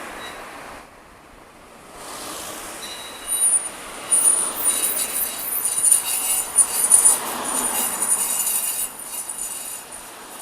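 Subaru XV giving a high-pitched metallic squeal over the rush of the moving car. The squeal sets in about three seconds in and comes and goes in pulses, an abnormal noise from the car.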